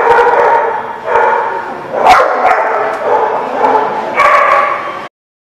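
Dogs barking and yipping in rough play, a string of short barks one after another. The sound cuts off abruptly about five seconds in.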